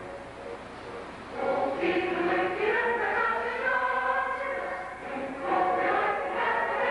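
A choir singing an anthem with orchestral accompaniment; after a quieter passage the voices swell in about a second and a half in and carry on in long sung phrases.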